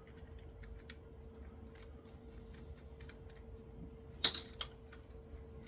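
Scattered small clicks and taps of a tool on the plastic parts of a computer mouse being taken apart, with one sharper click about four seconds in, over a faint steady hum.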